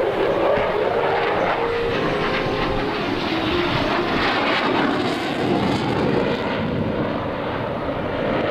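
F-16 Fighting Falcon fighter jet's engine noise as it flies a demonstration pass, a loud, steady rushing roar.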